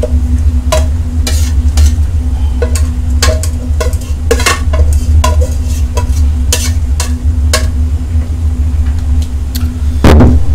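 Irregular clinks and knocks of metal cookware and a utensil, with stirring sounds, over a steady low hum; a louder cluster of knocks comes near the end.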